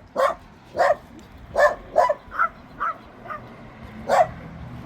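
Dog barking: about eight short barks at uneven intervals, several fainter ones in the middle and a loud one about four seconds in.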